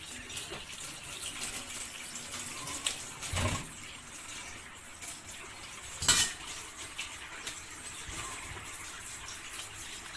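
Kitchen tap running water over broccoli in a stainless steel colander in the sink, a steady splashing hiss. Two sharp knocks cut through it, about three and a half seconds in and a louder one near six seconds.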